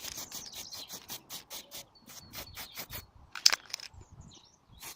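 Aerosol spray-paint can being shaken before a coat, its mixing ball rattling in quick regular clicks, about six a second, with one louder click about three and a half seconds in.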